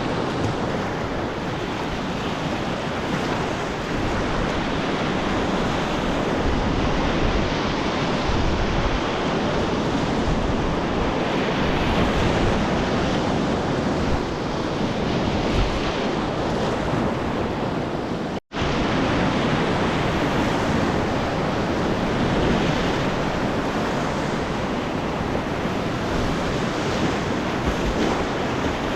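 Rushing whitewater of a class III–IV river rapid, heard from a kayak in the current: a dense, steady roar of water with some wind on the microphone. It cuts out for an instant about two-thirds of the way through.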